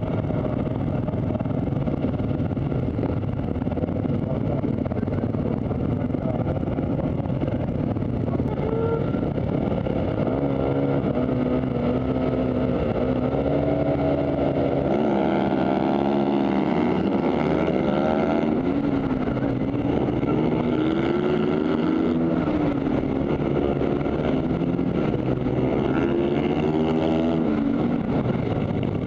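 Supermoto motorcycle engines, heard from a camera on the bike itself. They run steadily at first. From about a third of the way in, the bike accelerates hard, its pitch climbing and dropping repeatedly as it shifts up through the gears with the pack.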